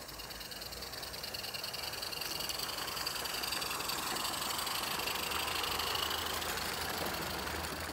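Roundhouse Tom Rolt live-steam garden-railway locomotive hauling a train of carriages past, its rapid exhaust beats and the wheels running on the track growing louder as it approaches, loudest about halfway through.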